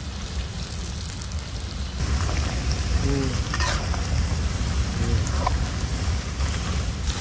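Sliced onions deep-frying in hot oil in an iron kadai: a steady, rain-like sizzle of bubbling oil that gets louder about two seconds in, with a low rumble underneath. A slotted spoon stirs and lifts the onions as they fry toward golden brown.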